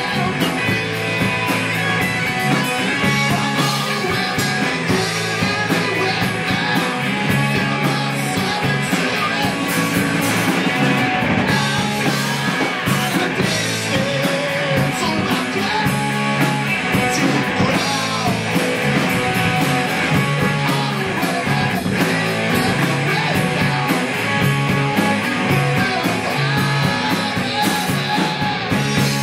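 Live rock band playing electric guitars, bass and drum kit, with a man singing into the microphone.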